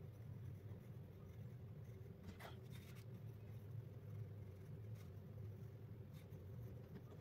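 Faint scratching of a pencil on drawing paper in short strokes, over a steady low hum.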